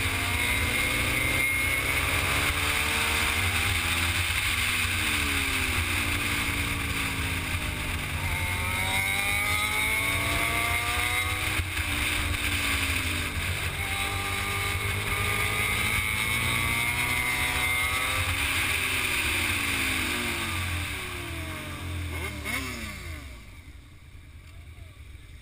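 Motorcycle engine under way, revving up and dropping back over and over as it shifts through the gears on a winding road, with heavy wind rush on the microphone. Near the end the engine and wind die down as the bike slows to a stop.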